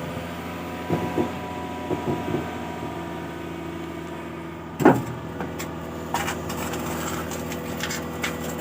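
Excavator's diesel engine running steadily, with a sharp knock just before five seconds in and a scatter of short clicks and knocks after it.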